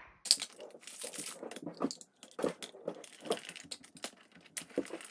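Hand-cranked rotary drum grater shredding a block of cheddar cheese: the plastic crank turning and the drum scraping through the cheese in a run of irregular crunching clicks.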